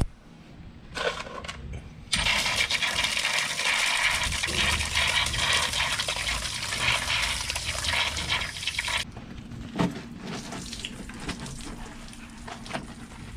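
Water running hard for about seven seconds, starting and stopping abruptly, with a few knocks and clicks before and after.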